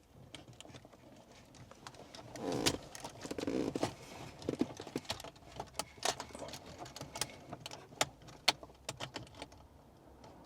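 Hands working the aerial plug into its socket behind the dashboard, with wiring and plastic parts being handled: a run of small sharp clicks and taps, and louder rustling about two to four seconds in.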